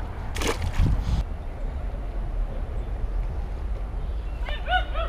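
A dog yipping several times in quick succession near the end, over a low steady rumble. There is a brief noisy rush about half a second in.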